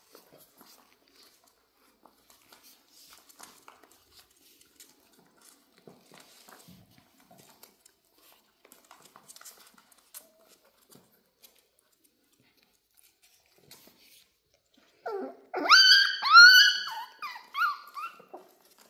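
Miniature dachshund puppies play-fighting: faint scattered taps and scuffles of paws for most of the time, then about fifteen seconds in a loud run of high-pitched puppy yelps lasting about three seconds.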